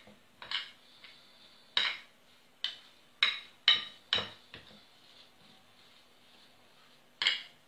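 Metal spoon clinking and scraping against a glass dish while working a thick chocolate paste: about eight sharp clinks, bunched in the first four seconds, with one more near the end.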